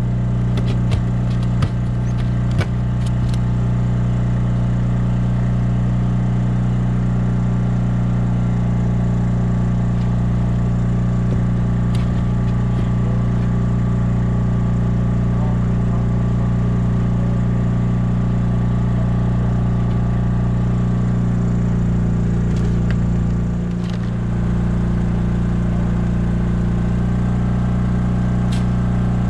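Small engine, most likely the boat's generator powering the LED flood lights, running with a steady low hum; it dips briefly about two-thirds of the way through. A few sharp knocks and clatters on the boat in the first few seconds.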